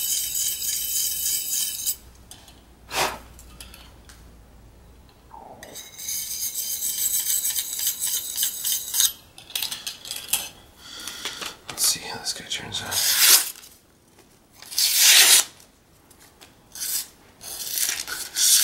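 A carbon-steel knife blade is stroked quickly against a fine DMT diamond hone, giving a continuous metallic rasp in two stretches in the first half. This is touching up the edge to take off a burr. In the second half come shorter, separate swipes of the sharpened blade slicing through sheets of paper.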